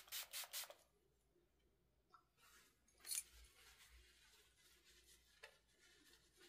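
A small pump spray bottle squirted a few times in quick succession onto a CD, then faint rustling of a tissue wiping the disc, with one brief louder rustle about three seconds in.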